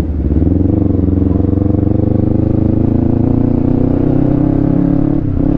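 Kawasaki Ninja 250 FI's parallel-twin engine running under way, its pitch climbing gradually as the bike pulls. The pitch and loudness dip briefly at the start and again about five seconds in.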